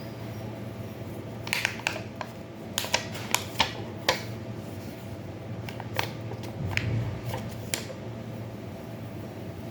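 A series of light, sharp clicks and taps from small objects being handled while medicine is compounded, bunched in the first half and then spaced out, over a steady low hum.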